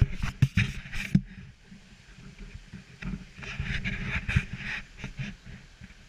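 Bumps and rustling from a handheld camera being carried along a path: a cluster of sharp knocks in the first second, then another spell of rustling and knocks from about three seconds in.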